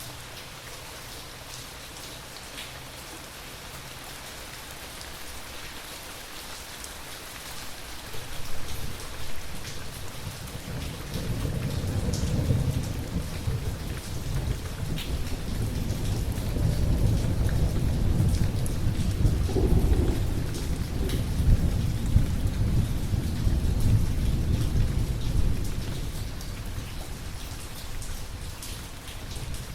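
Steady rain with a long, low rumble of thunder that builds about a third of the way in, swells for most of the stretch and fades near the end.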